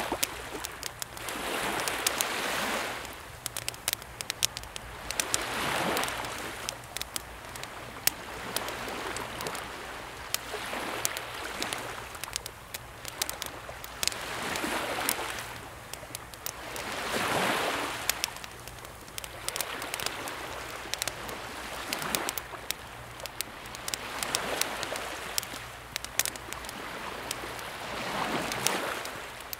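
Small waves on a calm sea washing in and drawing back, swelling every few seconds, while a wood campfire crackles and pops sharply throughout.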